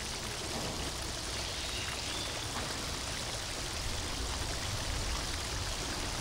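Steady rushing background noise, like running water, with a few faint clicks and brief thin tones.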